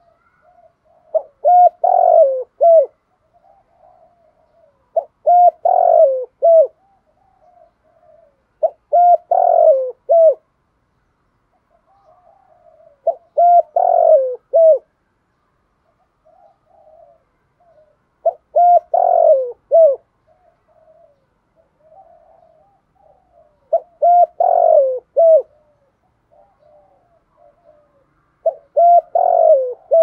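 Spotted dove cooing: a phrase of several coos repeated seven times, about every four to five seconds, with fainter soft notes between the phrases.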